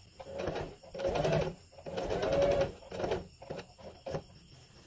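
Singer electric sewing machine stitching a concealed zipper into a skirt seam in three short runs, the first about a second and a half long. The needle ticks rapidly in each run as the motor speeds up and slows, and a few single clicks follow.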